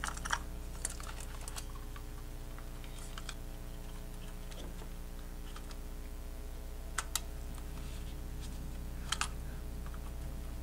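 Scattered light plastic clicks and taps as the DJI Mini SE drone's folding arm is fitted back onto the body and turned at its hinge, a few in the first second, a pair about seven seconds in and one near the end, over a steady low hum.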